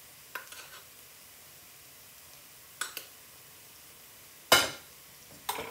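Stainless-steel spice tins and a small steel bowl being handled over a glass mixing bowl: a few light metallic clinks, then one much louder metal clatter about three-quarters of the way through.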